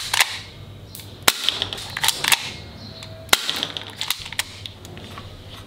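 Plastic toy pistol being worked by hand: a run of sharp plastic clicks and clacks, with three louder snaps among them.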